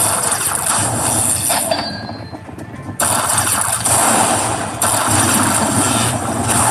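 Lightning Link Sahara Gold slot machine's game sounds, a loud dense rush of electronic effects that dies down about two seconds in and cuts back in suddenly about a second later.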